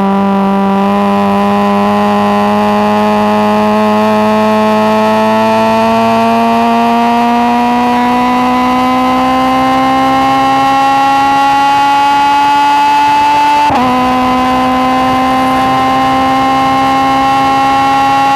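Four-cylinder track car's engine pulling hard in a high gear, heard from on board, its note climbing slowly and steadily. About 14 seconds in the pitch drops sharply with an upshift, then starts climbing again.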